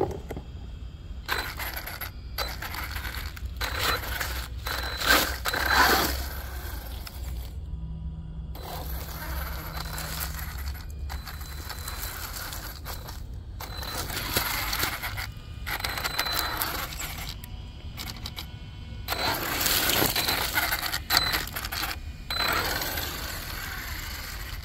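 Arrma Nero 1/8-scale brushless electric RC monster truck driving over asphalt and dry leaves. Its motor and drivetrain whine and rattle, and its tyres scrub. The sound comes in bursts, loudest about five seconds in and again around twenty seconds, and cuts off abruptly several times.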